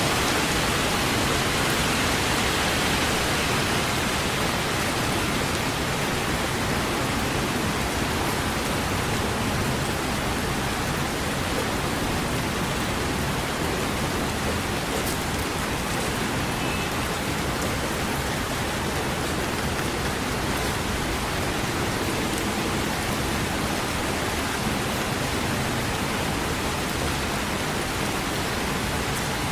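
Steady rain making a constant, even hiss, a little louder in the first few seconds.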